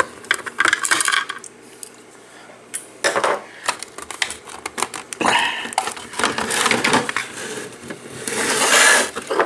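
Hard plastic housing parts of a speaker jukebox being handled and pried apart: scattered sharp clicks and knocks, with stretches of scraping and rubbing, the loudest near the end.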